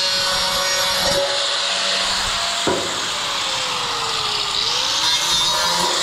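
Electric angle grinder in a metal workshop, a steady whirring hiss of power-tool noise. A little under three seconds in there is a sharp knock, after which a motor tone slowly falls in pitch and then rises again.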